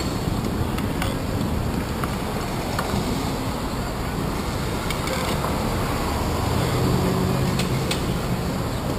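City street traffic: a steady wash of engine and road noise, with one vehicle's low engine hum growing louder near the end.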